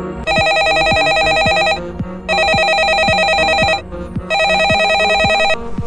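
Smartphone ringing with an incoming call: three rings of about a second and a half each, with short gaps between them. A steady beat of background music runs underneath.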